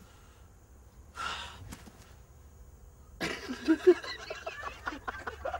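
Wordless sounds from a man's voice: a short breathy burst about a second in, then a run of short, choppy vocal noises from about three seconds in.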